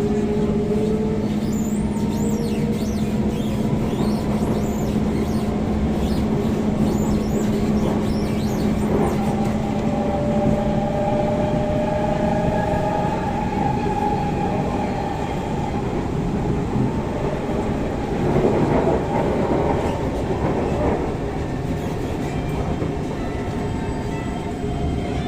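SMRT C151 MRT train running on the line: a steady motor hum under whining motor tones that slowly shift in pitch, over wheel and rail rumble. About eighteen seconds in the rumble grows louder and rougher for a few seconds, then eases.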